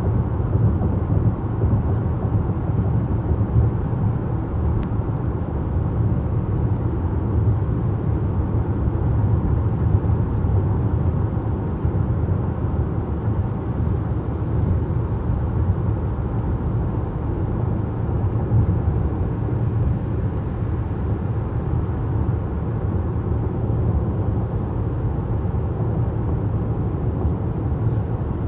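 Steady road noise inside a car cruising on a freeway: a constant low rumble of tyres and engine heard through the cabin.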